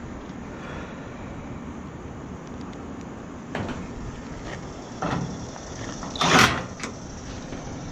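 A few knocks, then a loud slam about six seconds in and a smaller knock just after, over a steady background hiss: a door being shut.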